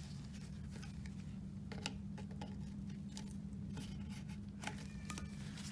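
Scattered light clicks and taps of a hose and spring clamp being worked off a plastic power steering reservoir, over a steady low hum.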